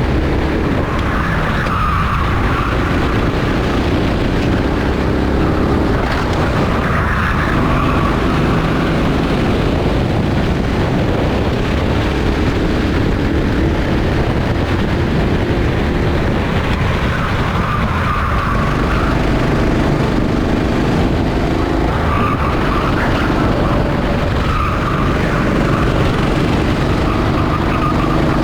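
Rental go-kart engine racing, its pitch dropping and climbing again every few seconds as the kart brakes for corners and accelerates out. Tyres squeal briefly through several of the corners.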